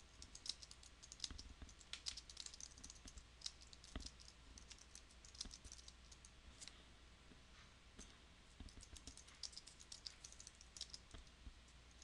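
Faint typing on a computer keyboard: quick runs of keystroke clicks, with a sparser stretch around the middle.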